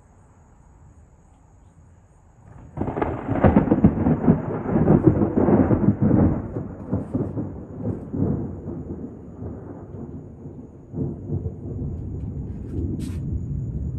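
Close thunderclap about three seconds in: a sudden crack that breaks into a long rolling rumble, easing off and swelling again near the end.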